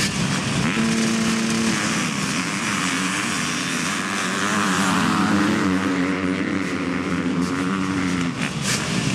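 A pack of motocross dirt bikes at the starting gate, an engine held at steady revs, then many engines revving hard together as the pack launches off the line and accelerates away.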